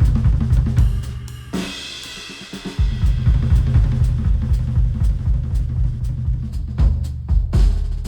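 Instrumental track with a drum kit and a deep bass line, played through open-back hi-fi headphones and picked up by microphones on the ear cups. The beat and bass drop out about one and a half seconds in and come back just before the three-second mark.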